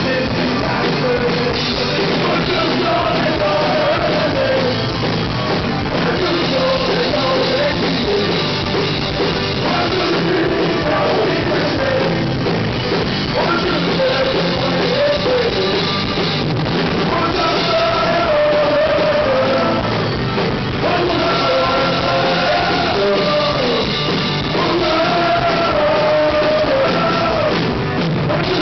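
Rock band playing live: a male singer sings over electric guitar and drums, loud and continuous.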